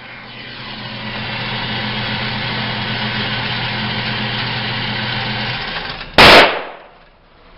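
A small electric motor, the range's target carrier, running steadily with a low hum for about six seconds before it stops. Then a single loud gunshot.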